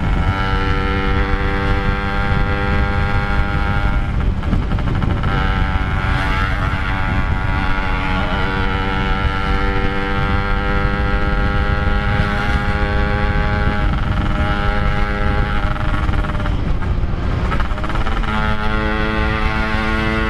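Yamaha RX-King two-stroke single-cylinder engine running at a steady cruising note while riding, with wind rumble on the microphone. The engine note breaks briefly a few times and settles into a steadier, stronger tone near the end.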